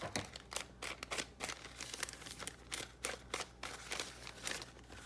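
Irregular light taps and short scratchy strokes, several a second, of an ink pad being dabbed and swiped along the edges and fold lines of paper to give it an aged look.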